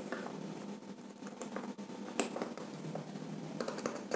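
Scattered faint clicks and scrapes of a wire and a screwdriver being worked at the screw terminal of a plastic two-way switch, as the wire is fitted and the terminal screw is tightened. A few sharper clicks come about two seconds in and again near the end.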